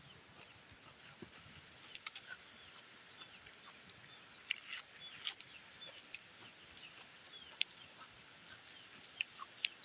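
Chickens and small birds chirping and clucking in the background: short, scattered high calls, some dropping in pitch, a few every second.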